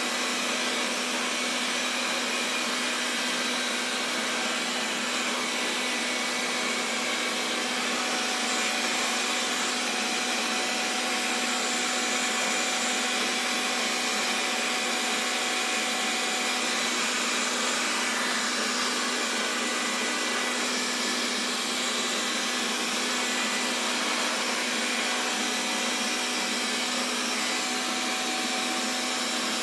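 Xiaomi Mi Robot Vacuum running steadily: an even fan hiss with a constant low hum underneath.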